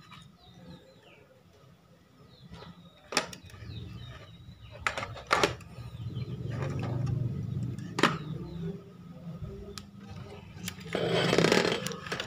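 Irregular clicks and knocks of a digital multimeter being handled, its probes and rotary selector dial worked, about half a dozen sharp clicks over a low steady hum, with a short rustling burst near the end.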